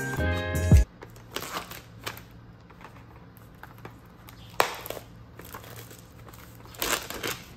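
Background music cuts off under a second in. It is followed by plastic packaging crinkling and rustling as it is handled, in three short spells.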